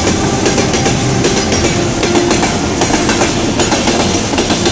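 A freight train of tank wagons passing close by at speed, its wheels clattering over the rail joints in a dense run of clicks.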